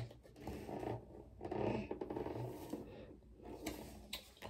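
Hard plastic rubbing, scraping and knocking as a water-filter pitcher is handled and its lid worked at by hand.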